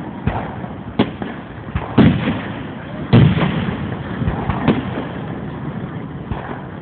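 Aerial fireworks going off: four sharp bangs about a second apart, the middle two the loudest, each trailing off in a short rumble.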